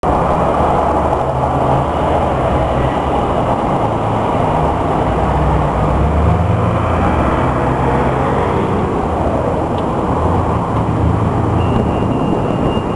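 Steady, loud low rumble with a wavering hum underneath it.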